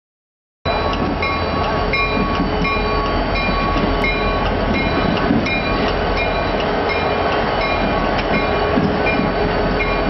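Heavy diesel machinery running steadily at a railroad worksite, starting abruptly about half a second in, with a low rumble and a short high-pitched tone repeating about twice a second.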